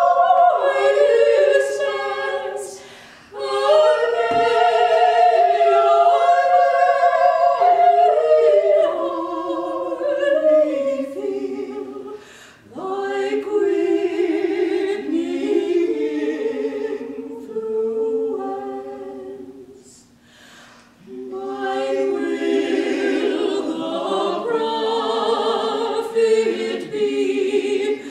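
Women's vocal quartet singing a cappella in harmony, in long phrases with brief breaks between them.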